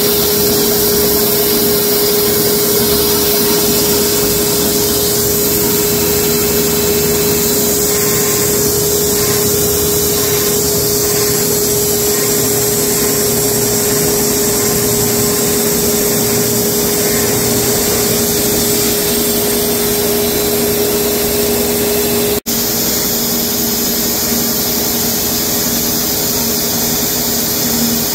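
Wood-Mizer LX250 band sawmill running with its dust-collector hose drawing air, a loud steady whine and rush. About 22 seconds in the sound drops out for an instant, and afterwards the steady noise goes on at a lower pitch.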